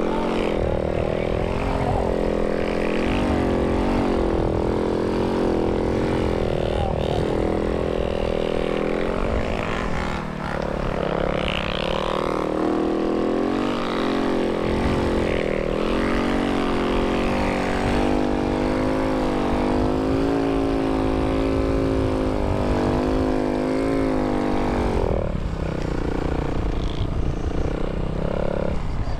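Snow bike engine running under load while riding, its pitch rising and falling steadily as the throttle is worked, easing off briefly about ten seconds in.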